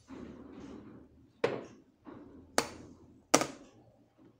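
Three sharp metal knocks, a second or so apart and the last the loudest, as steel vise parts are handled and set down on a sheet-metal bench top, with softer handling noise between.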